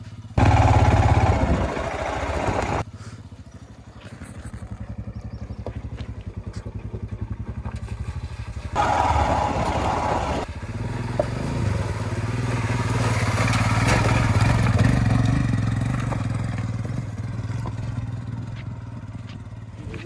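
Royal Enfield Himalayan's 411 cc single-cylinder engine being ridden off-road. There is a loud blast of throttle at the start, then a quieter run, and another loud burst about nine seconds in. After that the engine note swells and fades away.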